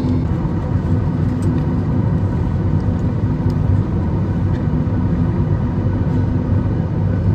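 Steady low rumble inside the cabin of a Boeing 737 MAX 8 airliner during pushback from the gate: the hum of the aircraft's air and power systems with the engines at low power.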